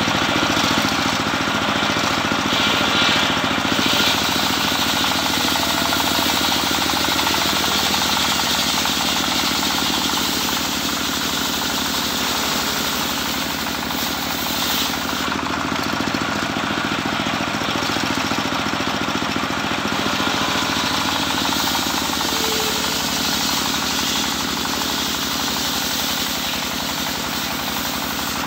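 Engine-driven, home-built circular sawmill running steadily while its belt-driven blade rips teak heartwood: a constant engine drone with a steady hiss of cutting over it.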